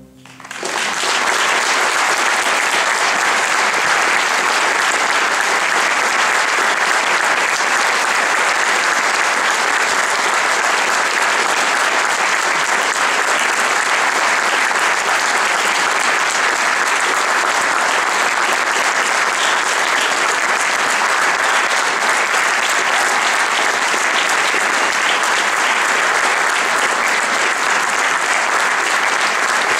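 Audience applause, swelling up within the first second and then holding steady and dense.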